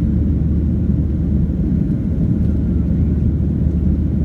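Steady low cabin roar of a Ryanair Boeing 737-800 in flight, its jet engines and rushing air heard from inside the cabin during the climb after takeoff.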